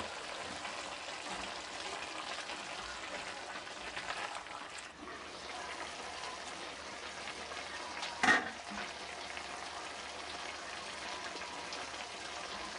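Chicken and vegetables sizzling steadily in an enamel pot, cooking in their own juices with no water added. A single sharp knock sounds about eight seconds in.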